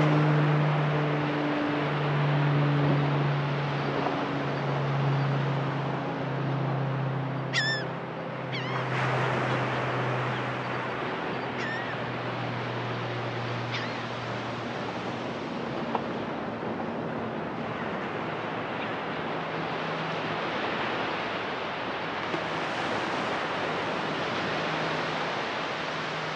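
Ocean surf breaking and washing steadily on the beach, with a few short, sharp gull calls around the middle. Under it, the low hum of a boat engine fades out over the first half.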